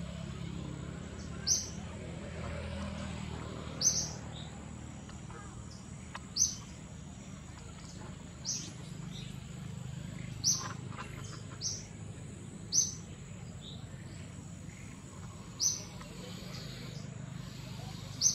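A bird repeatedly giving short, sharp, high-pitched chirps at irregular intervals of one to three seconds, over a steady high-pitched insect drone and a low background rumble.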